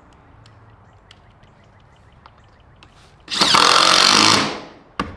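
Power driver sinking a screw into a wooden cross member for about a second, running down as it stops, followed by one sharp knock.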